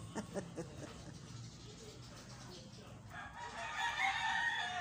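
A rooster crows once: a long, loud call that starts about three seconds in and lasts about two seconds.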